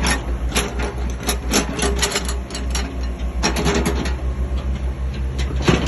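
Caterpillar 305 mini excavator's diesel engine running with a steady low rumble, with frequent irregular clanks and knocks from the machine.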